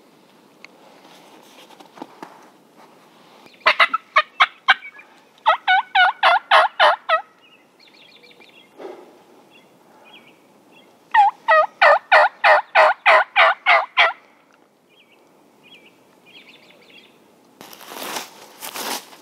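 Merriam's wild turkey gobblers gobbling loudly, in three rapid rattling bursts about 4, 6 and 12 seconds in, with faint short calls between them. A rustling noise near the end.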